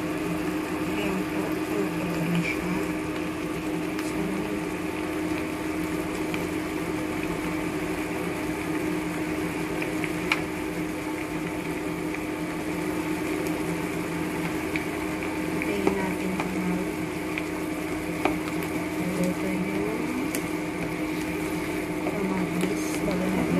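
Tomato, onion and black bean mixture simmering and sizzling in a frying pan over a steady hum, with a few light clicks and a spatula stirring the pan near the end.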